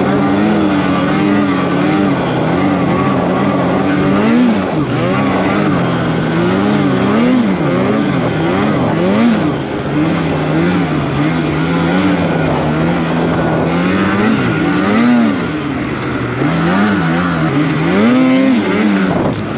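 Polaris Pro RMK snowmobile's two-stroke engine running hard, its pitch rising and falling every second or two as the throttle is worked.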